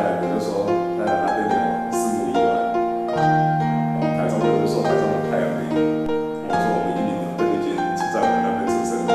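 Instrumental background music with piano, slow held notes over a sustained low bass note.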